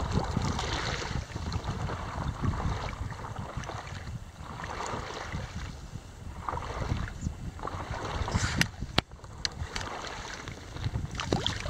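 Wind buffeting the microphone over water splashing and lapping around a stand-up paddleboard on open water, with a few sharp clicks about nine seconds in.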